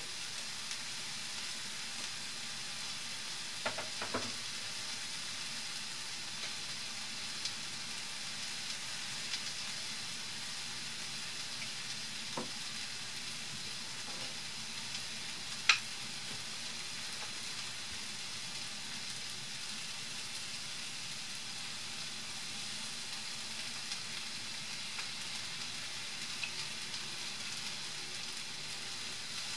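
Sliced red onions sizzling steadily in hot coconut oil in a pan as they heat through, with a few sharp pops of spitting oil, the loudest about sixteen seconds in.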